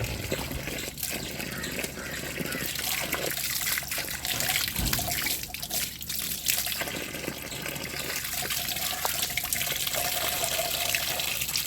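Water running and trickling steadily, with small splashes.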